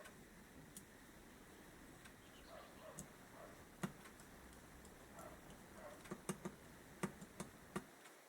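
Faint, scattered clicks and taps of small carburettor parts being handled and fitted, several in quick succession in the second half, over a faint low hum that stops near the end.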